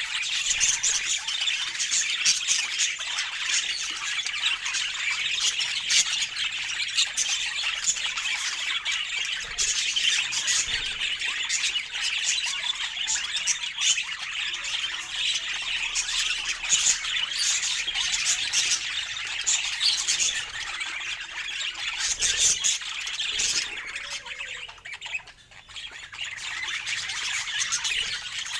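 A flock of budgerigars chattering and squawking continuously, many quick high calls overlapping, with a brief lull near the end.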